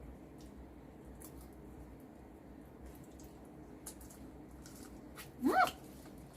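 Faint eating sounds of crab: light clicks from picking at shell and wet squishing of the meat. Near the end there is one brief vocal sound that rises sharply in pitch.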